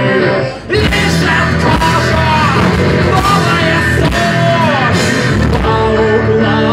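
Live rock band playing: after a brief break about half a second in, drums, bass and guitars come back in full, with a lead melody bending up and down over them.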